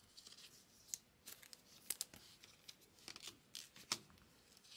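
Trading cards being handled and slid into plastic sleeves: faint rustling with a few sharp little clicks scattered through.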